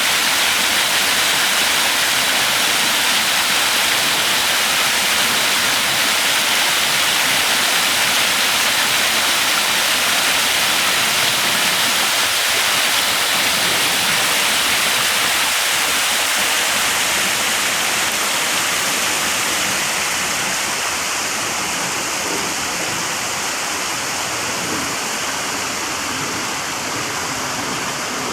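Waterfall in a waterside park: a continuous, loud rush of falling water. It eases slightly and sounds a little duller about two-thirds of the way through.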